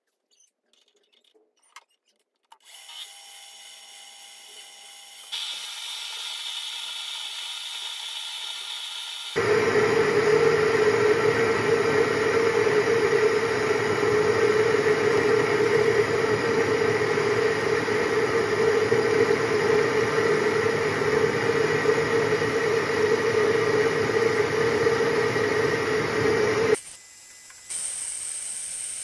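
Mini lathe motor starting a few seconds in and stepping up in speed a couple of seconds later. From about a third of the way through it runs much louder, with a steady hum under a hiss, as the turning tool cuts the bar in the chuck, throwing chips; shortly before the end the cut stops and the lathe keeps spinning more quietly.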